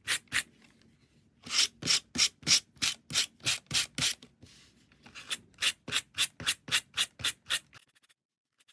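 Wire-bristle slicker brush raking through 3 mm macrame cord fringe in quick repeated strokes, about three a second, combing the strands out into a soft fringe. The strokes come in two runs with a short pause between and stop near the end.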